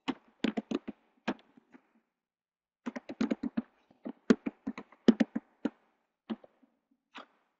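Typing on a computer keyboard: a short run of keystrokes in the first second or so, a longer run from about three to nearly six seconds in, then a couple of single taps near the end.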